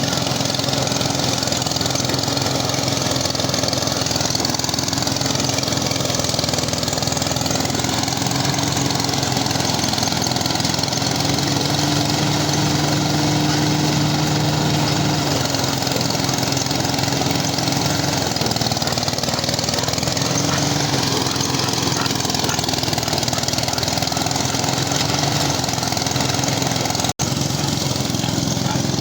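A small engine running steadily, its pitch wavering slightly; the sound drops out for an instant near the end.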